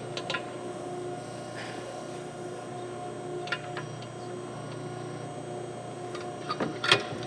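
Backhoe engine running steadily as a low hum that swells a little now and then, with scattered light clicks and knocks and one sharp clack near the end.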